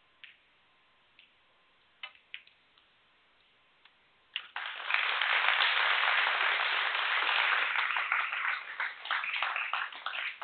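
Snooker balls clicking as the cue strikes the cue ball and the black is potted. About four and a half seconds in, the audience breaks into loud applause for the century break, thinning to scattered claps near the end.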